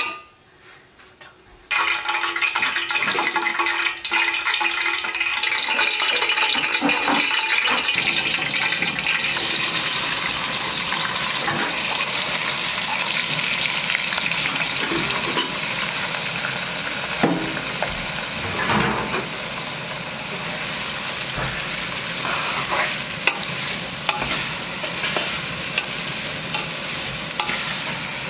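Chopped onion frying in hot oil in an aluminium pot: a steady sizzle that starts suddenly about two seconds in as the onion goes into the oil, with a metal spoon stirring it and clinking against the pot now and then.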